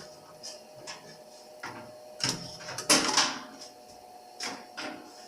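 Handling noise: scattered clicks, knocks and clunks as the typewriter and its power cord are handled, the loudest cluster about three seconds in, over a faint steady hum.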